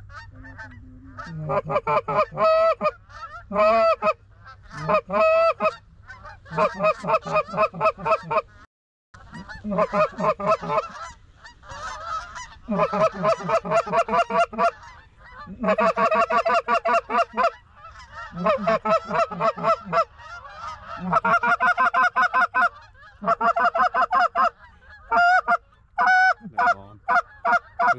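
Goose honks and clucks in loud, rapid runs, several calls a second, coming in bursts of one to two seconds with short gaps between.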